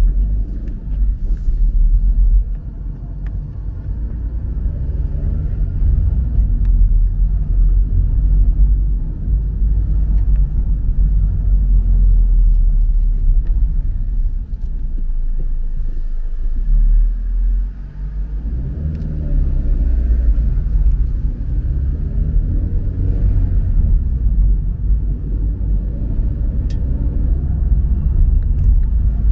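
Low rumble of a car driving, engine and road noise heard from inside the car. The engine note dips and then rises and falls again about two-thirds of the way through.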